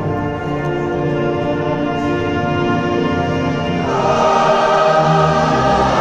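Combined choirs singing long held notes with an orchestra and wind ensemble, swelling louder and brighter about four seconds in.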